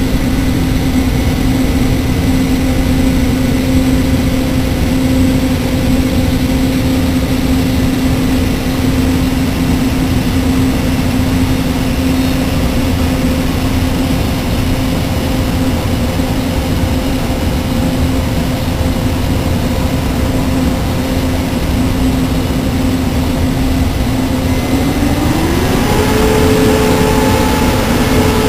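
Taiwan Railways E1000-series push-pull electric express train moving past: a steady low rumble of wheels and running gear under a constant electric whine. The whine glides up in pitch about 25 seconds in and holds at the higher note.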